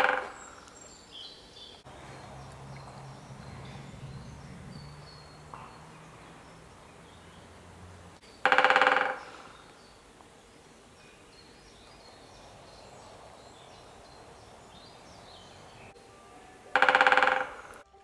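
Male great spotted woodpecker drumming on dead wood: short, rapid rolls of about half a second each, one ending right at the start, then two more about eight seconds apart. Faint birdsong lies behind, with a faint low hum through the first half.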